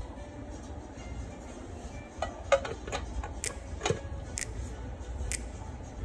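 Glass pot lid clinking and rattling as it is set down onto the rim of a cooking pot. There are several sharp clicks, two of them ringing briefly, over a low steady rumble.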